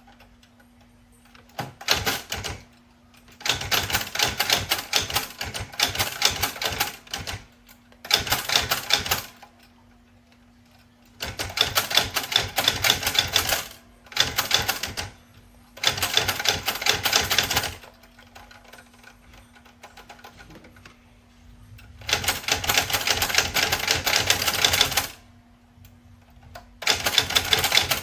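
Royal Classic manual typewriter being typed on: runs of rapid key strikes lasting a few seconds each, broken by short pauses. A faint steady hum can be heard in the pauses.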